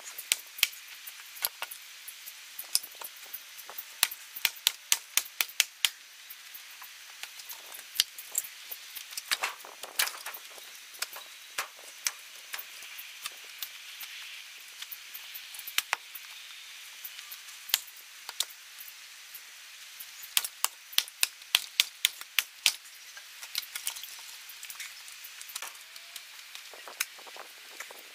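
Firewood being split by hand: birch logs struck and split apart on a chopping block, giving many sharp cracks and knocks in irregular bunches with short pauses between.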